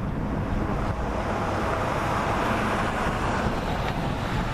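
Steady rumble of road traffic with wind noise on the microphone, swelling slightly about two seconds in as a vehicle goes by.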